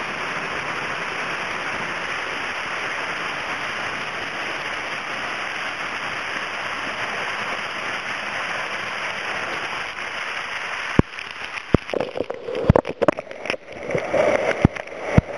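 Steady rush of a waterfall close by. About eleven seconds in, the rush cuts off abruptly and is followed by uneven noise with a series of sharp knocks.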